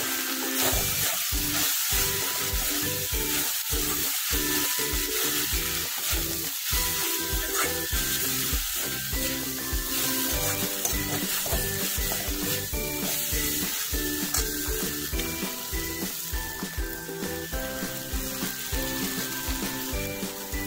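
Instant noodles sizzling in a hot wok while being stirred and tossed with a steel spoon.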